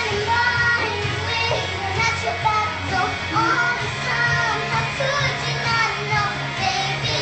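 A young girl singing over recorded backing music, her voice line rising and falling above a steady bass.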